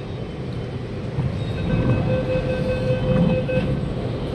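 Delhi Metro Violet Line train pulling slowly alongside the platform and coming to a stop, with a steady low rumble. A steady tone sounds for about two seconds in the middle of the stop.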